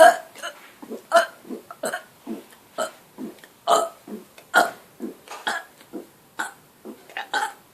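A person burping on purpose over and over in quick succession: short burps about two a second, some louder than others.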